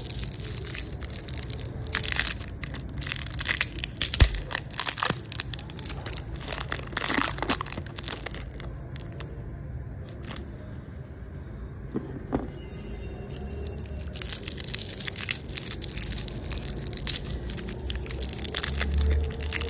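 Twist-end foil-and-plastic toffee wrappers crinkling and crackling as they are untwisted and peeled open by hand. The crackling stops for about five seconds in the middle, then starts again.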